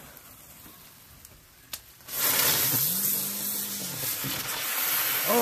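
Ground bloom flower firework catching about two seconds in and then spinning on the ground with a loud, steady hiss of spraying sparks.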